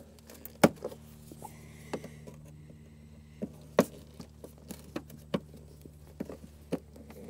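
Plastic body clips on a truck's inner fender liner being pried out with a forked trim tool: a string of sharp, separate clicks and snaps, the loudest about half a second in and again near four seconds.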